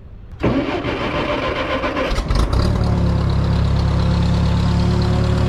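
Case Construction King 530's engine cranked on the starter and catching about two and a half seconds in, then idling steadily.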